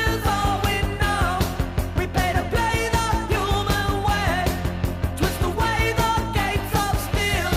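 Background music: a song with sung vocals over a steady, fast beat.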